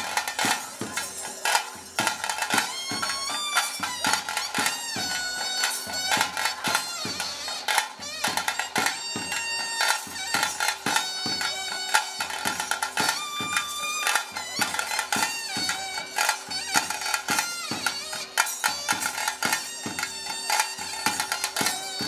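Traditional ritual music: a nagaswara plays a bending, ornamented melody over a steady drone, with drums keeping a regular beat.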